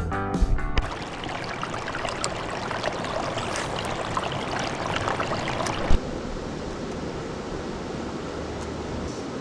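A river running over rapids makes a steady rush of water. A short stretch of background music ends under a second in, and a single knock comes near six seconds, where the water sound changes character.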